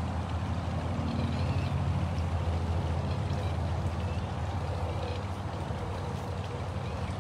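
A steady low mechanical hum over a steady wash of running water.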